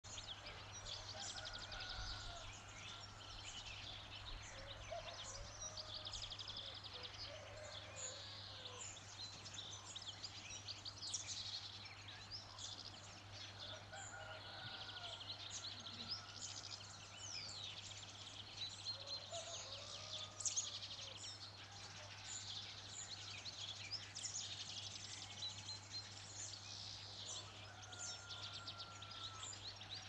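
A chorus of many birds singing and calling over one another, busy high twittering with lower, drawn-out calls every few seconds. A steady low hum runs underneath.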